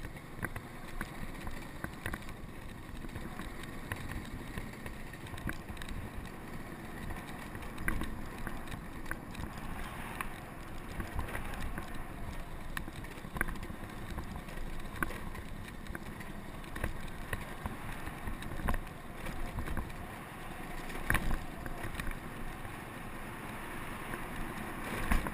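Wind buffeting and road rumble picked up by a scooter-mounted GoPro while riding along, with a knock or rattle now and then as the scooter goes over bumps.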